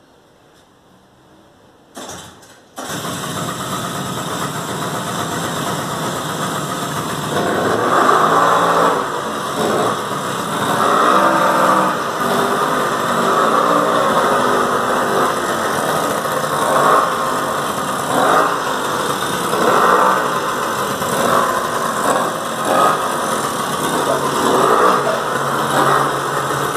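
Small 50 cc youth ATV engine being started: it catches briefly about two seconds in, then fires and keeps running. After a few seconds of steady running it is revved up and down over and over.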